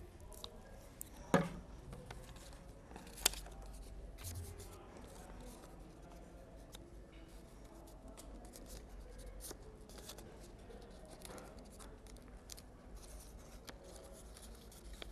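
Paper craft pieces being handled, glued and pressed down: faint rustling with scattered small clicks, and two sharper knocks about one and a half and three seconds in.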